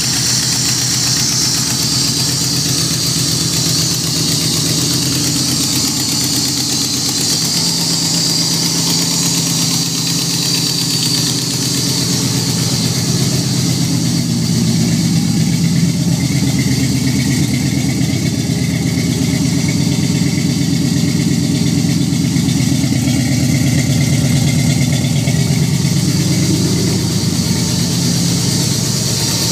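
Third-generation Camaro's cammed 5.0-litre V8 idling steadily, its vacuum leaks cured, at an idle the owner guesses is still a bit high.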